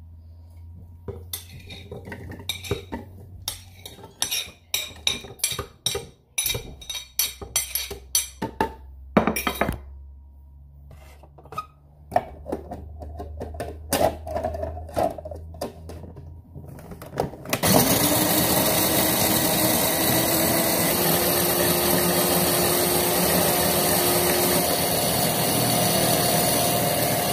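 Clicks and knocks of lumps of fireplace charcoal being handled in a food processor's plastic bowl and lid. About two-thirds of the way through, the food processor's motor starts with a brief rising whine and runs steadily, grinding the charcoal into powder.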